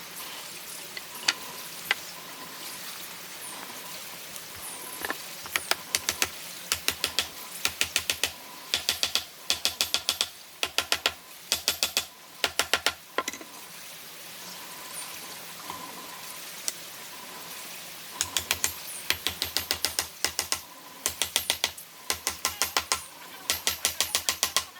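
Short runs of quick, sharp clicks or taps from hand-tool work on wood, several a second in groups lasting about a second, with pauses between. The first stretch comes about five seconds in and the second near the end.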